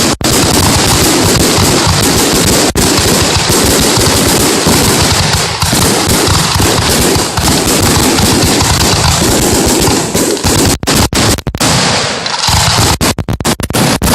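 Fireworks going off in a loud, dense rapid-fire crackle of pops, breaking up into separate bangs with short gaps near the end.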